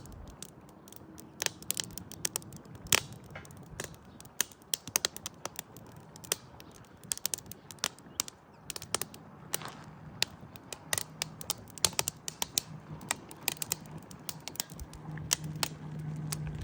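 Irregular sharp clicks and taps, a few a second, with a low steady hum coming in about two thirds of the way through and growing louder near the end.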